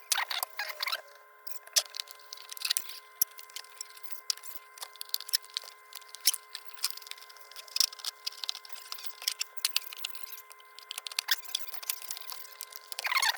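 Irregular small clicks, taps and knocks of the old rotary phone's parts being handled and fitted back together, with no steady rhythm.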